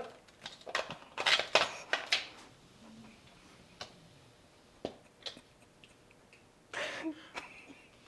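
Quick clicks and knocks as a long-handled grabber tool clamps onto a plastic bowl of caramel corn and drags it away, densest in the first two seconds, then a few scattered ticks. A short laugh about seven seconds in.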